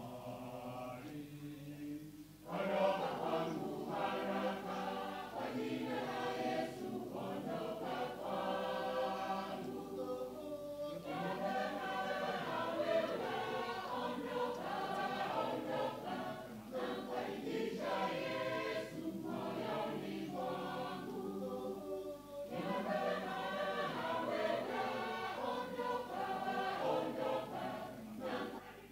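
Mixed church choir of men's and women's voices singing together, getting much louder about two and a half seconds in and going on in long phrases with short breaks between them.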